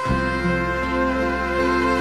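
Instrumental background music of long held chords, with a new chord and a low bass note coming in at the start.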